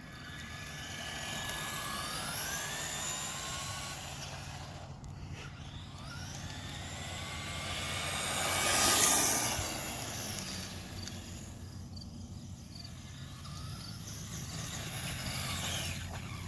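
Traxxas Bandit RC buggy's electric motor and gears whining at full throttle, the pitch rising several times as it accelerates, loudest as it passes about nine seconds in. This is a top-speed run on the stock 21-tooth pinion.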